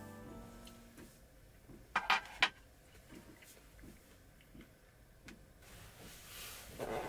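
Quiet van interior with small tabletop handling sounds: two sharp clicks close together about two seconds in, a few faint ticks, and a short burst of handling noise near the end.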